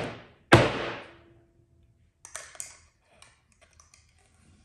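A 3-inch PVC filter tube knocked down on end onto a workbench about half a second in, a hollow knock with a short ring, to shake loose the last piece of biomedia stuck inside. A few light clicks and taps follow.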